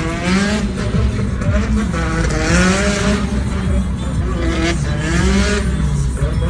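Music with a singing voice, over a steady low car rumble and road noise.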